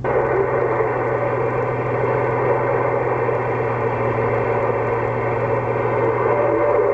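CB radio speaker on the 27 MHz band putting out steady static hiss with a low hum, cutting in suddenly; no voice comes through it.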